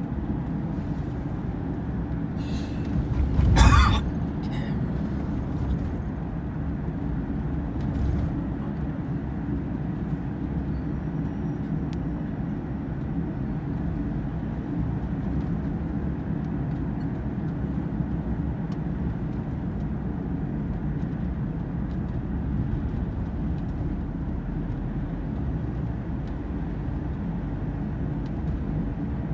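Road and engine noise inside a moving car's cabin, a steady low rumble. About three and a half seconds in there is a brief, louder burst of noise.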